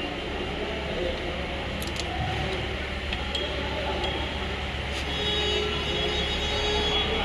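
Steady road-traffic rumble, with a few short, light metallic clicks as the rear drum brake shoe and its spring are fitted back in place.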